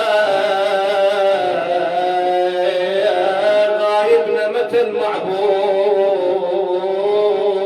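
A man chanting a Shia nai (lament), drawing out long, wavering sung notes in a melismatic line.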